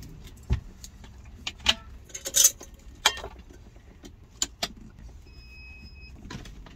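Clinks and knocks of a stainless steel pot and a portable induction cooktop being set up on a table, with one dull thump about half a second in. Near the end the cooktop gives a single electronic beep lasting under a second as it is switched on.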